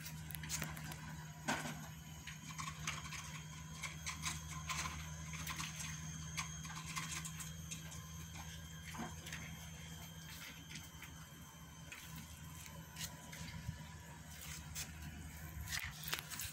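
Faint scuffling and scattered small taps from cats wrestling on a tiled floor, over a steady low hum.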